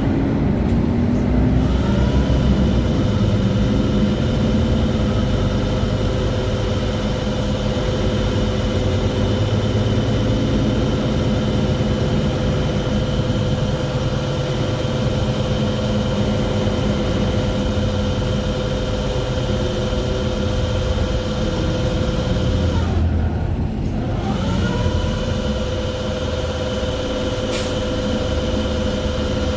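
Mercedes-Benz Citaro G articulated bus running, with a loud, steady high-pitched whine over a low rumble. About 23 seconds in the whine sinks away and glides back up to the same pitch a second or so later, and a short click follows near the end.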